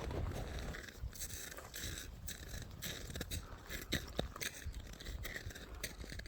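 Footsteps crunching on snow and ice, an irregular run of short crunches.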